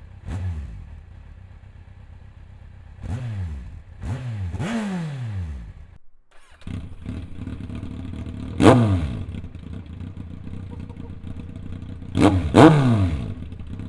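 Kawasaki Z1000 inline-four motorcycle engine idling and being blipped: short throttle stabs send the revs up and straight back down, several in the first five seconds. The sound cuts out briefly about six seconds in, then idles again with one sharp blip and a quick double blip near the end.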